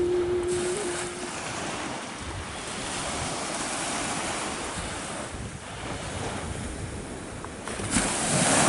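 Small waves breaking and washing up a sandy beach, with wind rumbling on the microphone; a bigger wave breaks with a louder rush near the end.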